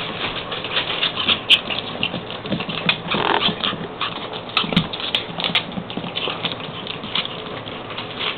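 Wolves and puppies tussling at play: irregular scuffling, rustling and pattering, with many small clicks and no clear voice.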